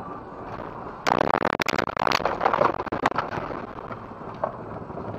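Car collision: about a second in, a sudden loud crash of crunching, clattering impacts lasting about two seconds, then dying away, over steady road noise.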